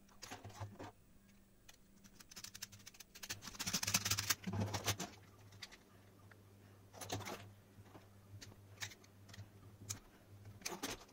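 Hands working a plastic torch housing and its wires: irregular clicks, taps and rattles of plastic parts. A denser, louder burst of clatter comes about four seconds in, and another short cluster near the end.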